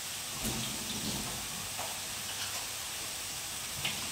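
Pancetta lardons sizzling steadily in a frying pan, with a few light clinks of kitchenware.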